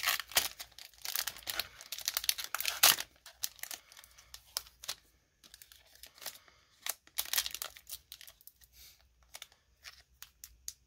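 Foil Pokémon booster pack wrapper crinkling and tearing as it is pulled open by hand. The rustles come in bursts, thickest in the first three seconds and again around seven seconds in.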